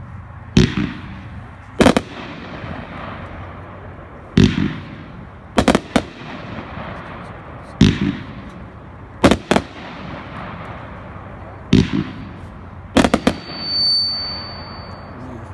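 Gun Runner 500-gram consumer fireworks cake firing: shots launching and bursting with sharp reports every second or two, some in quick pairs, echoing between. A steady high whistle sounds for about a second near the end.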